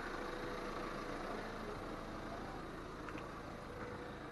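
A motor vehicle's engine idling steadily, slowly growing fainter.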